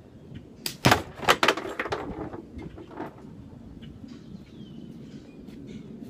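A slingshot shot hitting a champagne bottle and shattering its neck: a sharp crack about a second in, then a quick run of further cracks that fades out over the next second or so. A bird chirps faintly later on.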